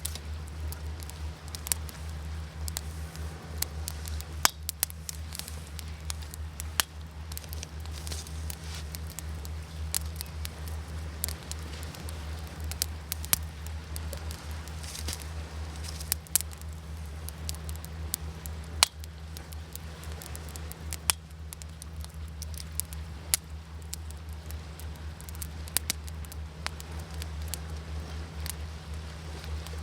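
Wood fire crackling, with irregular sharp pops, a few of them loud, over a steady low rumble.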